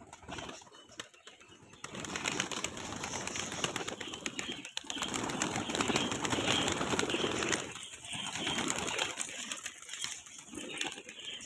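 Fancy pigeons taking off and flying, a dense flurry of clattering wingbeats that builds about two seconds in, peaks in the middle and fades with a few softer bursts near the end.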